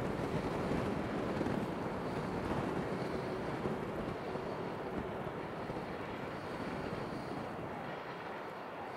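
Wind blowing on the microphone: a steady rushing noise, with a faint steady hum beneath it through the first half.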